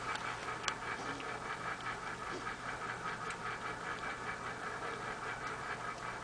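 A cat licking another cat's head while grooming it: soft, regular licking strokes over a steady background hum.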